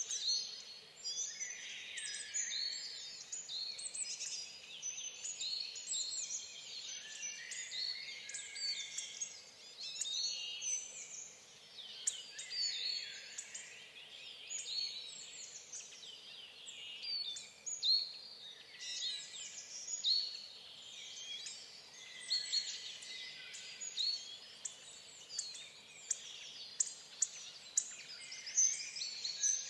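Several small songbirds singing and chirping without a break, their quick warbling phrases and high chirps overlapping, over a faint steady background hiss.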